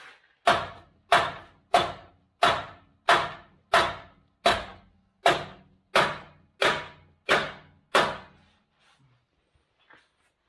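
A hammer pounding on the steel spare tire carrier bracket under a Toyota 80 Series Land Cruiser, twelve even blows about two every three seconds, each ringing briefly. The bracket is stuck to the frame, which the owner puts down to its 30 years in place. The blows stop about two seconds before the end.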